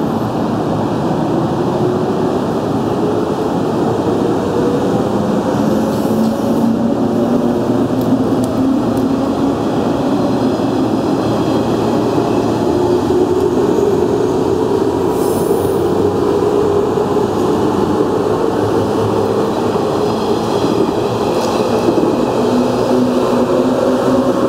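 JR 185 series electric train accelerating away from the platform: the traction motor whine rises in pitch, drops back about ten seconds in and climbs again as the train gathers speed, over a steady rolling rumble of wheels on rail.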